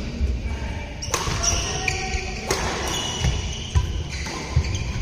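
Badminton doubles rally: sharp racket hits on the shuttlecock, a few seconds apart, with players' shoes squeaking and thudding on the court mat.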